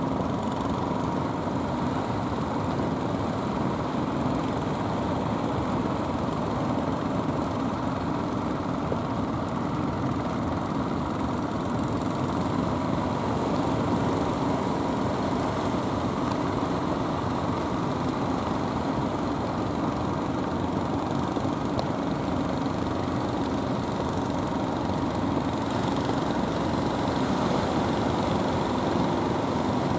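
Steady drone of motorized outrigger fishing boats' engines running, mixed with a rushing wash of wind and sea.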